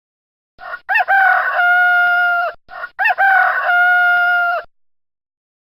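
Rooster crowing twice in quick succession: a sound-effect recording of a cock-a-doodle-doo, each crow about two seconds long and ending in a long held note, the second crow a repeat of the first.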